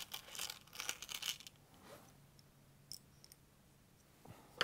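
Small metal screws clinking and rattling in a plastic parts box as they are picked through by hand, a quick run of clicks that stops after about a second and a half. A few faint clicks follow, then one sharp click near the end.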